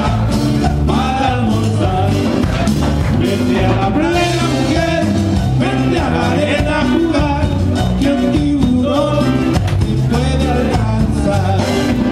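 Live band playing Latin American dance music, with a lead singer over a steady repeating bass line.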